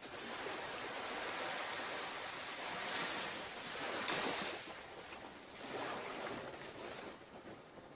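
Surf breaking on a beach, a steady wash of waves that swells loudest about four seconds in and then eases off.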